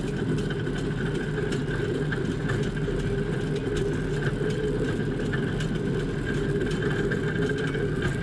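Pedal-powered rail draisine's steel wheels rolling along the track: a steady rumble with a thin whine above it and faint scattered clicks.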